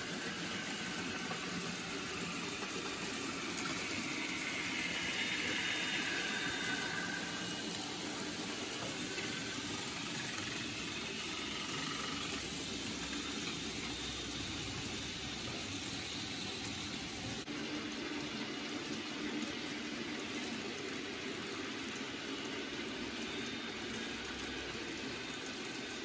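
N gauge model train running on the layout: a steady whirring hiss of its small motor and wheels on the track, with a faint whine that swells and fades a few seconds in.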